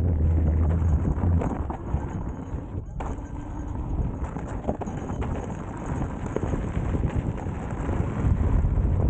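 Wind buffeting the microphone over the crunch and rattle of an electric unicycle's tyre rolling on loose gravel, with a steady low hum in the first second and a half.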